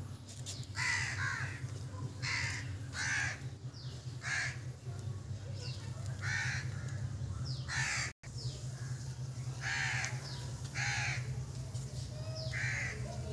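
A bird calling over and over outdoors, short calls about once a second, over a steady low hum; the sound drops out for an instant a little past halfway.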